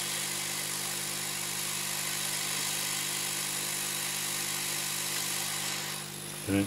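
Hot air rework gun blowing a narrow jet of hot air onto a circuit board to desolder a surface-mount resistor: a steady hiss over a low hum, easing off about six seconds in. A short low sound right at the end.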